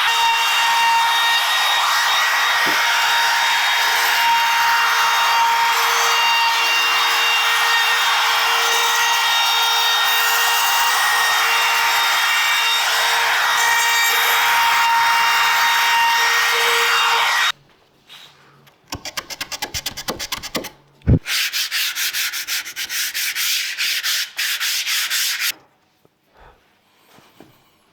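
Electric sander working wood: a steady rasp over a constant motor hum that stops abruptly at about 17 seconds in. Two short spells of quick rubbing strokes on wood follow.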